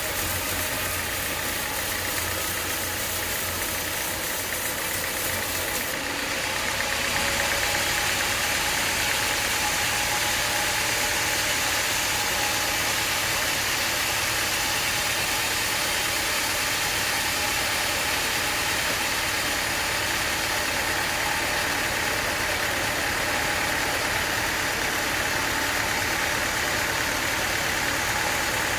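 Sawmill running as it cuts through an acacia log: a steady mechanical drone of engine and blade that grows a little louder and brighter about seven seconds in, then holds.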